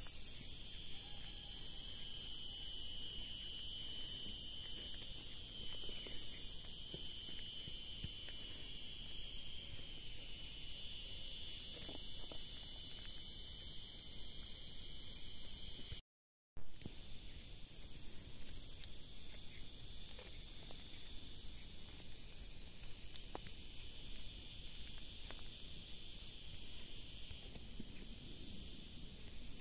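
Steady, high-pitched chorus of insects shrilling. It cuts out briefly a little past halfway and comes back somewhat quieter.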